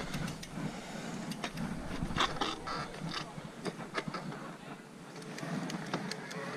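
Mountain bike rolling over a rough dirt forest trail: tyres on soil and roots, with frequent irregular clicks and knocks as the bike rattles over bumps.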